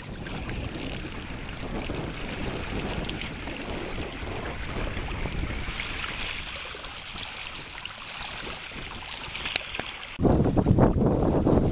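Water rushing and lapping along the hull of a Hobie Tandem Island sailing kayak under sail, with wind on the microphone. About ten seconds in it turns suddenly much louder, a heavy wind rumble with splashing from the wake beside the hull.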